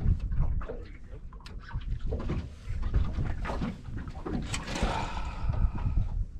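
Wind buffeting the microphone in a steady low rumble, with scattered knocks and clicks, and a short excited shout about five seconds in as a crappie is swung into the boat.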